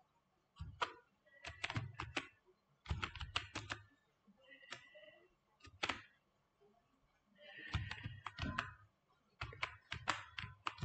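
Computer keyboard being typed on: groups of quick key clicks with short pauses between them, about six bursts.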